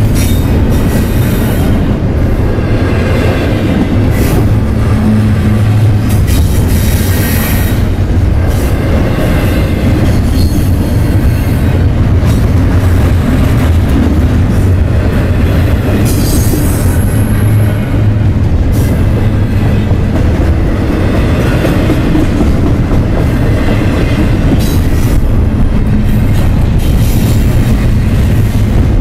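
Double-stack intermodal freight train rolling past close by: a steady loud rumble of steel wheels on the rails with the clatter of the well cars. A brief high wheel squeal comes about two thirds of the way through.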